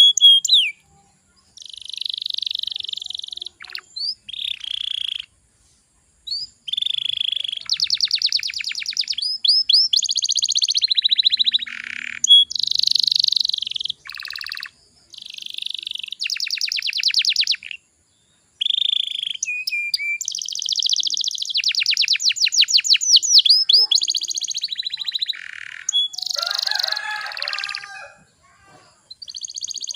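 Domestic canary singing: long, high-pitched phrases of very fast trills and rolls, broken by short pauses.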